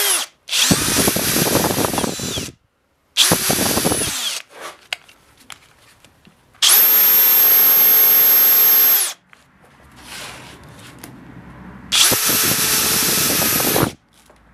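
Electric hand drill with a twist bit boring a hole into a small wooden block held in a vise. The drill runs in four separate bursts of one to two and a half seconds each, with short pauses between, as the hole is drilled to depth.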